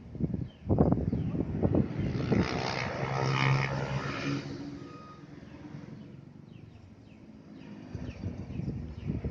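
A motor vehicle passing, its engine sound swelling to a peak about three and a half seconds in and then fading away, after a few sharp knocks in the first two seconds.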